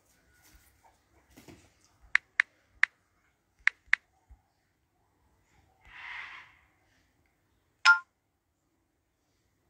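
Smartphone keyboard taps: five short, sharp tonal clicks in about two seconds, then a brief soft hiss and one loud short blip near the end.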